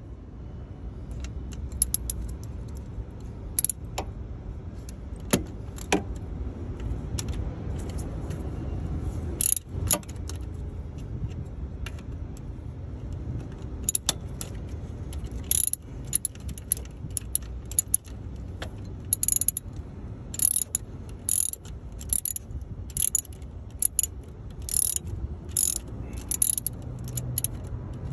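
Sharp metallic clinks and clicks of hand tools on bolts and metal parts, coming irregularly and more often in the second half, over a steady low rumble.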